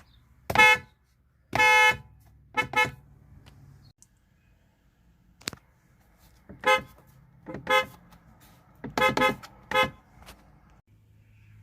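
Korean car horns honking in about nine short toots: a short one, a slightly longer blast, a quick double, then single toots and a fast cluster of three about nine seconds in, over a low hum.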